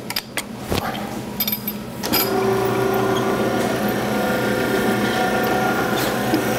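A few light metal knocks, then about two seconds in the electric tube-rolling machine starts and runs steadily, driving the stainless steel handrail tube through its rolls to bend it into a helix.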